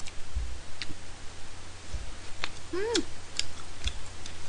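Eating sounds: wooden chopsticks clicking against a plastic container of tteokbokki and chewing, with a handful of sharp ticks spread through. A short hum that rises and falls comes about three seconds in.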